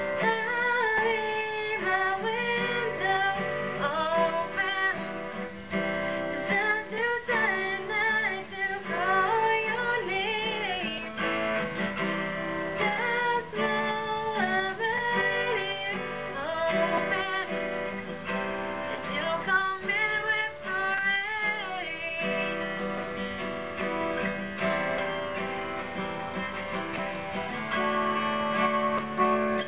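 A woman singing over strummed acoustic guitar. About three-quarters of the way through the voice stops and the guitar carries on alone.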